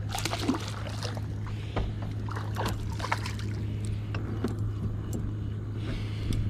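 Small catfish splashing and thrashing at the water's surface as it is pulled in and lifted into the boat by hand, with scattered short splashes and knocks over a steady low hum.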